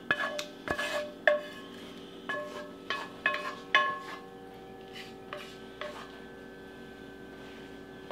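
A wooden spoon scraping and knocking against the inside of a black skillet as thick pot pie filling is poured out: a run of sharp clinks, each with a brief ring, about eight in the first four seconds, thinning out by about six seconds. A faint steady hum lies underneath.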